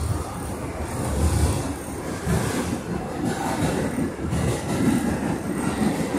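Interior noise of an R62A subway car in motion: the wheels running on the rails give a low, uneven rumble with louder swells.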